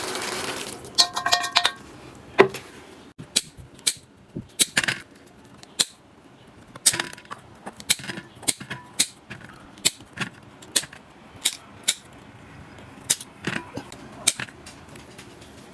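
Irregular clinks and taps of kitchen utensils against dishes, one or two sharp knocks a second, with a brief metallic ring about a second in.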